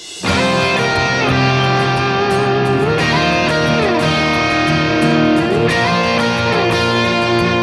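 Background music: an electric guitar intro with notes sliding up and down over a steady beat, coming in strongly just after the start.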